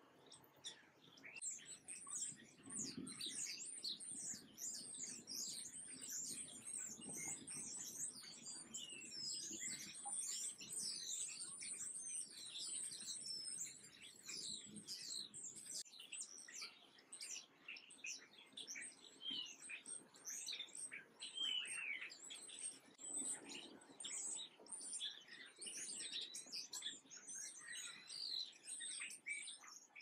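Small songbirds chirping and twittering: a dense stream of high, thin, quick calls, several birds overlapping one another.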